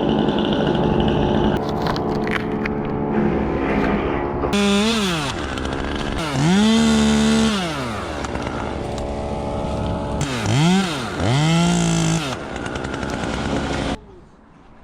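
Two-stroke chainsaw idling, then revved up four times with the pitch rising and falling; the second and fourth revs are held at full speed for about a second each. The engine sound stops abruptly near the end.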